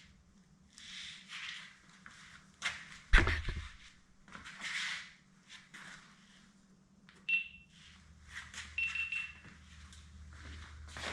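Scattered rustling and scraping of things being moved about, with one sharp knock about three seconds in and two short high beeps past the middle, over a faint steady hum.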